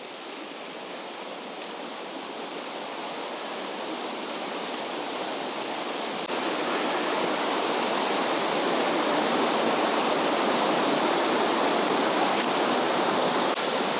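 Steady rush of river water, growing gradually louder, with a small jump in level about halfway through.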